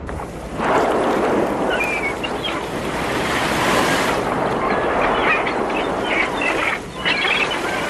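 Sea surf and wind: a steady rush of waves that comes up about half a second in, with a few short high calls over it.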